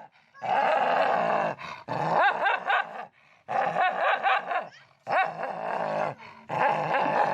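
A dog grumbling in protest with long, drawn-out growling vocalizations, about five in a row, each lasting a second or more.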